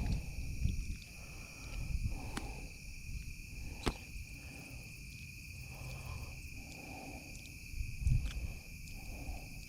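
Steady high droning of insects from the pond bank, with repeated short hoarse sounds, a few sharp clicks, and low bumps of handling on the microphone, the loudest about eight seconds in.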